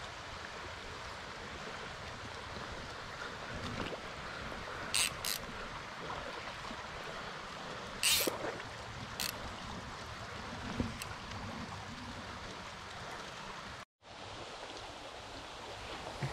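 Small mountain stream running over shallow rocky riffles: a steady rush of water, with a few brief sharp hisses around the middle. The sound cuts out for a moment near the end.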